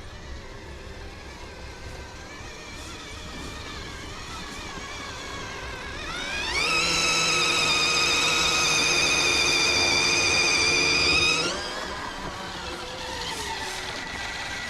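RC crawler's electric motor and gear drive whining, rising sharply in pitch about six seconds in as the throttle opens. It holds a steady high whine for about five seconds, then drops back down.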